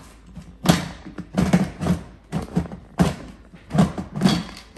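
Instant Pot lid knocking and scraping against the pot's rim as it is twisted and pressed to lock on: about ten irregular clunks. The lid is not catching and will not close.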